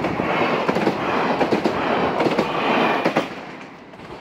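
TER regional train passing close by: a loud rush of wheels on rail with repeated sharp clicks, starting abruptly and dying away about three seconds in as the train clears.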